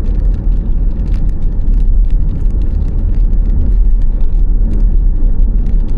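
Steady low road rumble and tyre noise inside the cabin of a moving electric car.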